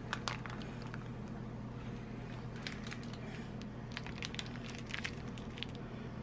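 Squeeze bottle squirting sauce onto a tortilla wrap: scattered small clicks over a steady low hum.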